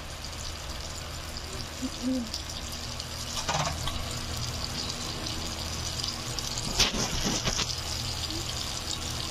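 Chicken fingers deep-frying in hot oil: a steady sizzle, with brief clatters of handling about three and a half seconds in and again around seven seconds in.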